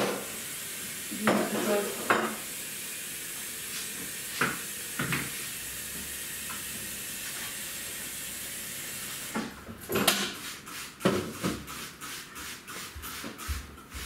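Electric kettle heating toward the boil with a steady hiss that stops abruptly about nine seconds in. A few clinks and knocks of crockery sound during the hiss, and a string of clicks and knocks follows as things are handled at the counter.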